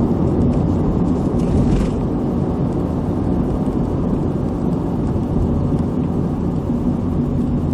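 A car being driven, its engine and tyres making a steady low rumble with a faint hum.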